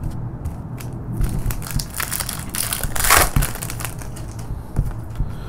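A foil trading-card pack wrapper crinkling as it is handled and torn open, with a louder burst of crinkling about three seconds in.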